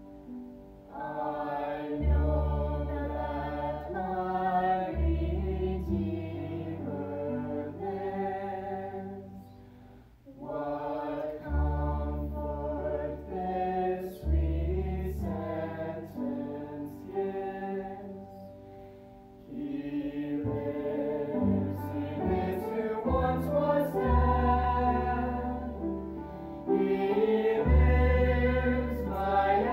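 Men's and women's voices singing a hymn together with piano accompaniment and sustained low bass notes. The music dips briefly twice between phrases, about ten and nineteen seconds in.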